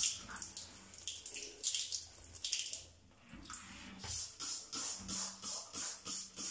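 Trigger spray bottle of degreaser squirting onto a metal mesh grease filter: a series of short hissing squirts, scattered at first, then coming quickly, about three a second, from about four seconds in.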